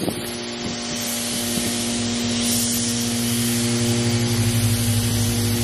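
Steady industrial machinery hum from a plastics factory, a few fixed low tones under a constant hiss.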